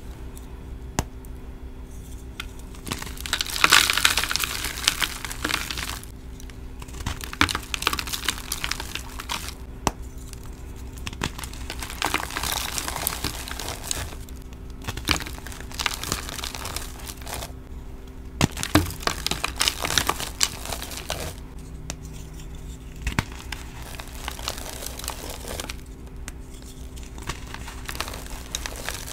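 Hands crushing dyed gym chalk slices topped with glitter: crunchy, powdery crumbling and crackling in bouts of a few seconds with short pauses between, loudest about four seconds in.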